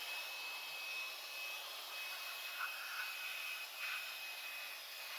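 Battery-powered blower running steadily: a rushing hiss of air with a steady high motor whine, blowing rinse water out of an engine bay.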